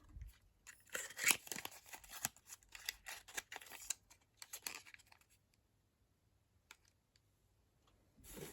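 Small cosmetic products and their packaging being handled: rustling and light clicks for about five seconds, then quiet until more rustling begins near the end.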